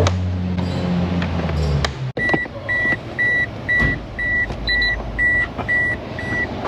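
A Toyota Matrix's dashboard warning chime beeping steadily, about two and a half short high beeps a second, starting about two seconds in after a low steady hum cuts off.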